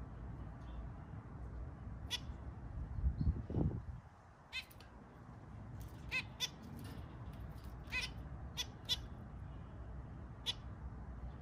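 Zebra finches giving short, nasal beeping calls, about eight of them scattered irregularly. A brief low rumble about three seconds in.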